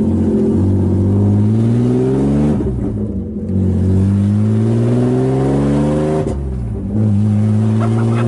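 BMW E36 325is straight-six accelerating hard through the gears, heard from inside the stripped cabin: the engine note climbs steadily, drops briefly at two upshifts about three and six and a half seconds in, and climbs again.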